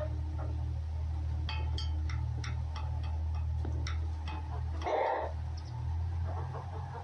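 Red fox nuzzling a ginger cat's head close to the microphone: several soft clicks in the middle, then a short breathy rasp about five seconds in, over a steady low rumble.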